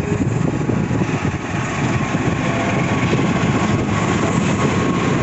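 Taksaka long-distance passenger train passing close by: a loud, steady rumble of the diesel locomotive and wheels on the rails.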